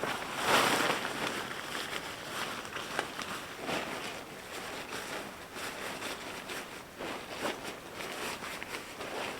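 Footsteps of a hiker walking on a gravelly track, roughly one to two crunching steps a second.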